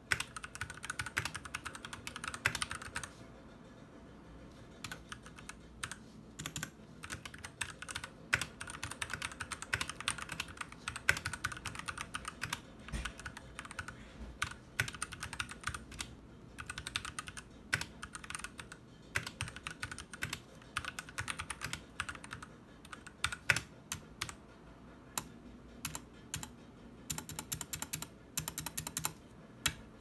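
Typing on a Noir N1v2 mechanical keyboard: quick key clacks in bursts, with short pauses between them.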